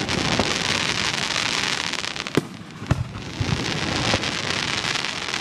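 Aerial fireworks: a dense crackle of many small reports, with a few sharp bangs of shells bursting, the strongest two about two and a half and three seconds in.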